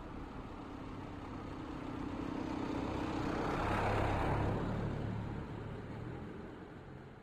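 A motor vehicle driving past, growing louder to a peak about four seconds in and then fading away, its engine note dropping lower as it passes.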